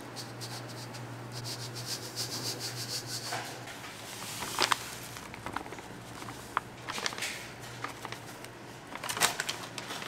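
Work-handling noise in a food factory: a quick run of rustling, rubbing strokes about a second in, then scattered sharp clicks and knocks. A steady low machine hum runs underneath.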